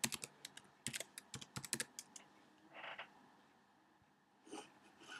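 Faint computer keyboard typing: a quick run of keystrokes over the first two seconds as a word is typed, then a few more stray key clicks near the end.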